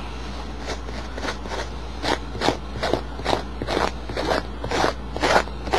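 Quick back-and-forth scraping strokes across denim jeans, about two to three a second, growing louder about two seconds in: the fabric being roughened to distress it.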